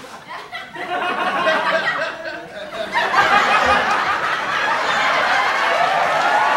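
Studio audience laughter, many people laughing at once as a sitcom laugh track, swelling and getting louder about three seconds in.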